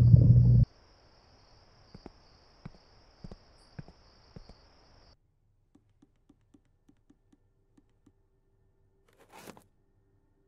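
A loud, deep underwater rumble cuts off abruptly just under a second in, leaving a near-quiet car interior with a low hum and faint scattered clicks and ticks. About nine and a half seconds in comes a brief rustling clunk as the car's sun visor is pulled down.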